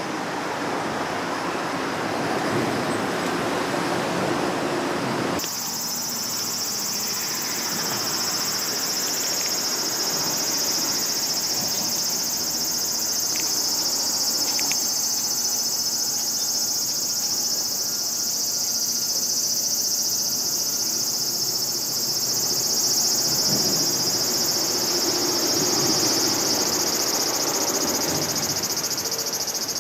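Steady, high-pitched insect chorus that starts abruptly about five seconds in and holds unchanged. Before it, a rough rustling noise.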